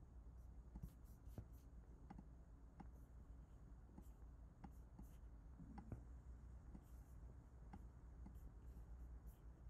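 Near silence: a low steady hum with faint, scattered clicks of a computer mouse or trackpad being used.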